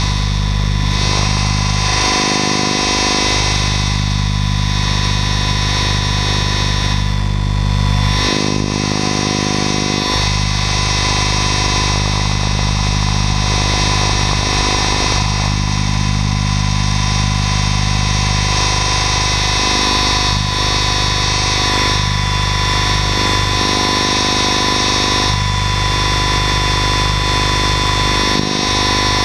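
Mikado Logo 800 Xtreme electric RC helicopter in flight, heard from a camera on its tail boom: a steady, loud whine of many tones from the motor, drive gears and spinning rotor. The pitch shifts briefly a few times as the load changes.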